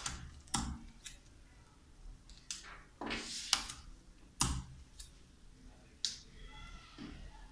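Large sheet of pattern paper being handled: a scattering of short rustles and taps, six or seven in all, one a little longer about three seconds in.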